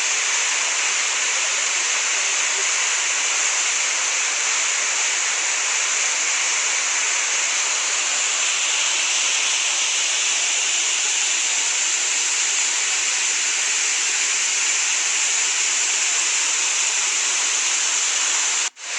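Steady rush of a waterfall, an even roar of water with no change. It cuts out for a split second near the end.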